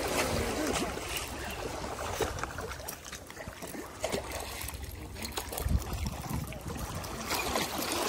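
Seawater lapping and trickling among rocks at the shoreline, with wind on the microphone and scattered rustling and clicks of handling.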